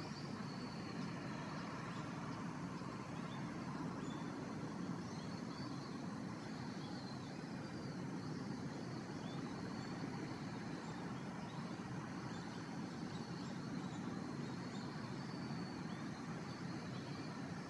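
A steady, distant engine drone that holds level throughout, which the uploader wonders is the motor of a powered paraglider. Faint short high chirps sound on and off over it.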